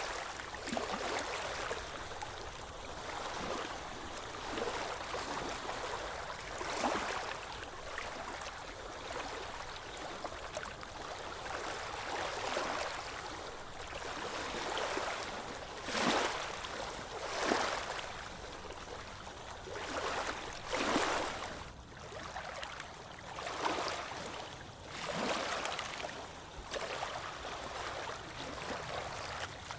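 Ocean waves washing onto a beach: a steady hiss of surf that swells and fades in surges every few seconds, the strongest surges a little past halfway through.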